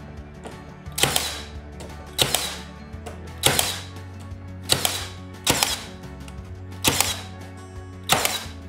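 Milwaukee cordless nailer firing seven times, a shot every second or so, each a sharp crack with a short tail, as it nails the trim board to the plywood. A soft music bed runs underneath.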